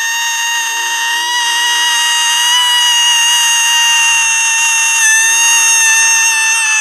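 A man's long, shrill falsetto screech, held on one high pitch with a slight waver and recorded close to the microphone.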